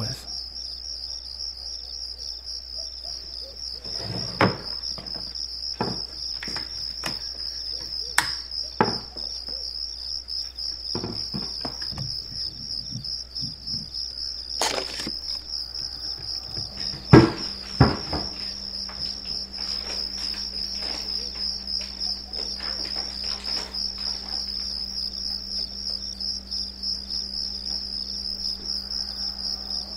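Crickets chirping in a steady, continuous high trill. Scattered knocks and clicks fall through the first half, the loudest pair a little past the middle. A faint low hum comes in at about that point and stays.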